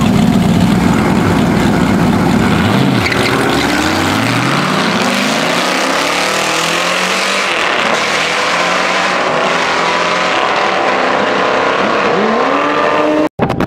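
A Chevrolet Corvette C5 and a Mazda MX-5 Miata drag racing. Their engines run steadily on the line, then the cars launch about two and a half seconds in and the engine pitch climbs again and again through gear changes as they pull away down the strip. The sound cuts out briefly near the end.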